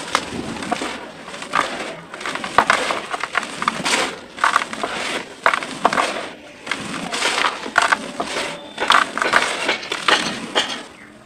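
Hands crumbling, squeezing and scooping dry, powdery red dirt in a plastic tub: irregular soft crunches and gritty rustles as the clumps break apart and the loose dirt falls through the fingers.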